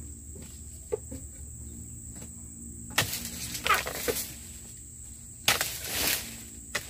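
Oil palm dodos, a chisel blade on a long pole, chopping into a palm's frond and bunch stalk: a few sharp strikes about three and four seconds in, then a louder, longer rush of leaves about five and a half seconds in as a cut frond falls. Crickets chirp steadily throughout.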